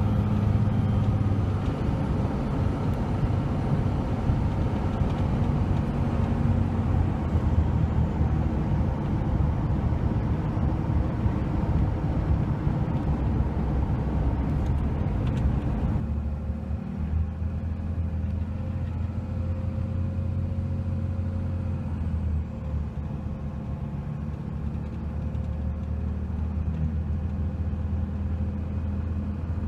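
Cab-interior sound of a 2003 Dodge Ram 3500's 5.9-litre Cummins inline-six turbo diesel running while the truck drives, a steady low drone under tyre and road noise. About halfway through, the road noise drops away abruptly and a lower, steadier engine drone remains.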